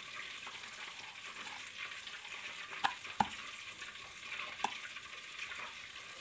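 Fingers working a crumbly gram-flour (besan) coating mixture in a glass bowl: a steady, fine gritty rustle, with a few sharp clicks of fingers against the glass a few seconds in.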